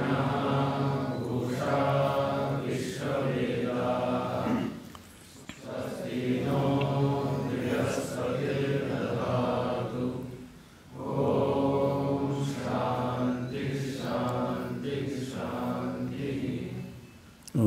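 A single man's voice chanting Vedic Sanskrit mantras in a steady recitation tone, in long phrases with brief pauses for breath about 5 and 10 seconds in and again near the end.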